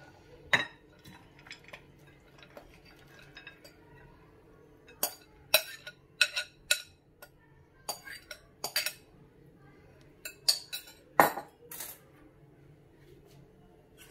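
Irregular clinks and knocks against glass bowls as chopped salad is moved into a glass serving bowl, about a dozen in all, mostly in the second half, the loudest near the end.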